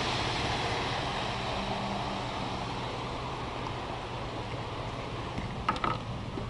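Truck cabin noise while driving over a wet, hail-covered road: steady tyre hiss with a low engine hum, slowly easing off. There is one short sharp sound near the end.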